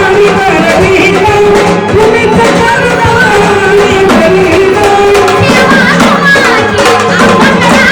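A woman sings a Marathi gondhal devotional song to Khandoba in long, wavering held notes. A sambal drum and an organ accompany her, the organ holding a steady low drone.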